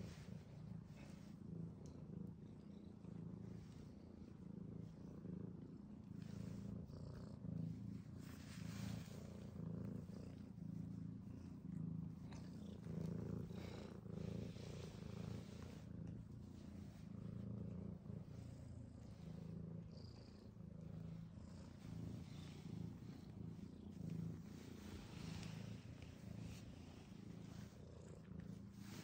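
Domestic cat purring steadily, with brief rustles now and then.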